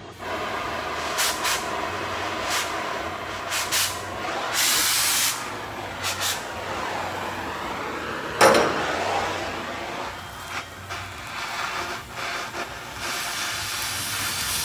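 Oxy-fuel cutting torch hissing steadily as it cuts through rusted steel chassis, with louder rushes now and then and a sharp crack about eight and a half seconds in.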